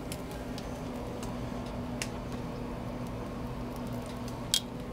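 Steady frying hiss on a Blackstone flat-top griddle, with a low steady hum under it. A few sharp clicks of metal tongs come about a second in, again two seconds in, and twice near the end.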